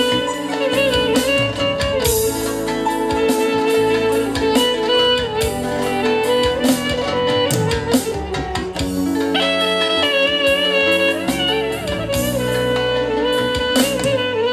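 Live instrumental band music: a clarinet plays a fast, ornamented melody over darbuka, drum kit, keyboard and electric guitar, with a steady beat.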